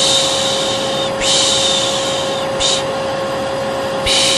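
Vacuum cleaner running steadily with a constant hum, overlaid by a person's repeated long 'shhh' shushes ('piş piş') about every second and a half, one of them short. This is the shushing-plus-vacuum white noise used to lull a baby to sleep.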